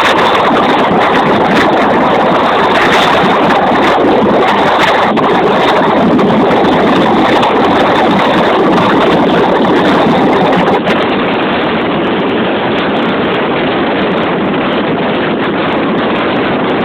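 Loud, steady wind rush on the microphone mixed with road and engine noise from a moving vehicle; no horn sounds. It drops a little and turns duller about eleven seconds in.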